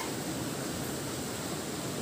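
A steady, even hiss of background noise with no distinct events.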